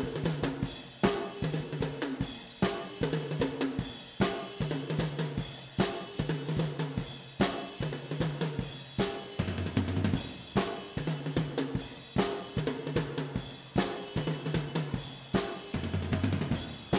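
Background music: a drum kit with snare, bass drum and cymbals keeping a steady beat over a bass line that steps between notes.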